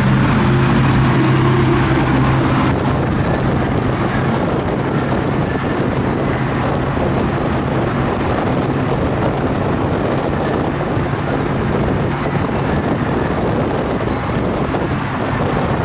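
Wind rushing over the microphone and road noise of cars travelling side by side at speed. A steady engine hum runs under it for the first two or three seconds, then fades into the wind.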